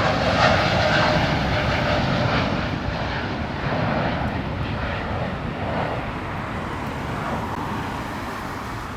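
Jet airliner's engines at takeoff power during a departure, a steady rushing roar that slowly fades.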